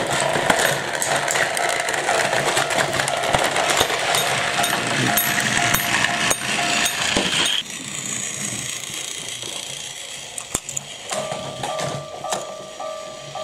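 Battery-powered Plarail toy train motors whirring and their plastic wheels clattering over plastic track and playset parts, with many small clicks; the noise cuts off suddenly about seven and a half seconds in. Near the end a repeating two-note ding starts.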